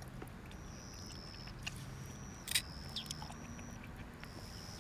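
An insect calling with a steady high-pitched tone in stretches of one to two seconds, over a faint low hum, with a few sharp clicks, the loudest about halfway in.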